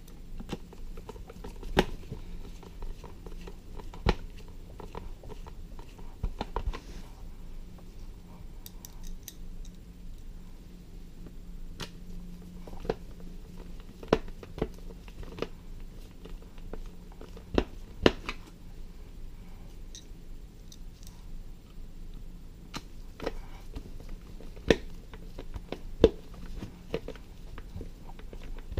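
Hand screwdriver driving screws into the plastic casing of a patient-simulator mannequin's arm: irregular small clicks and scraping, with a handful of sharper clicks spread throughout.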